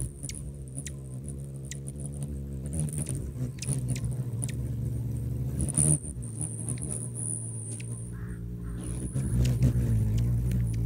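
Hummingbirds hovering close at a hand-held feeder: the steady low hum of their beating wings, with short high chips and ticks scattered over it.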